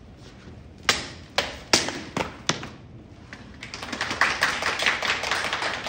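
A katana cutting through a rolled tatami mat on its stand: five sharp cuts in quick succession over about a second and a half, taking the mat down section by section. A couple of seconds of quick, dense tapping follows.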